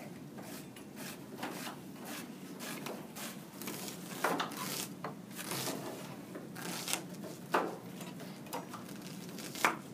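Chef's knife slicing and dicing an onion on a wooden cutting board: a run of irregular knife strokes and knocks on the board, with sharper knocks about four, seven and a half and nine and a half seconds in.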